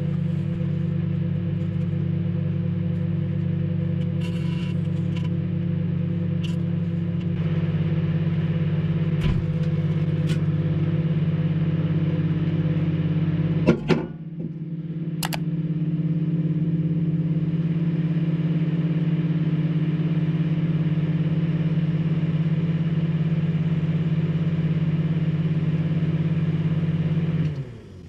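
Microwave oven running with a loud, steady hum while heating an aerosol deodorant can. A few sharp clicks come first, then about halfway through a single sharp bang as the can bursts, which the owner finds less explosive than expected. The hum carries on and cuts off suddenly near the end as the oven is switched off.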